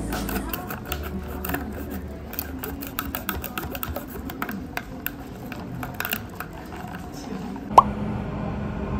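Many light clicks and taps of tableware in a café, then a single sharp, very short rising pop near the end, followed by a steady low hum.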